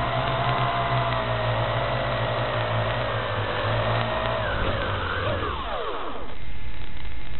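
Small drone's electric motors and propellers whining steadily with slight wavers in pitch, then several sharp drops in pitch about five to six seconds in as the drone sets down in the grass and the motors spin down. A louder steady hiss follows near the end.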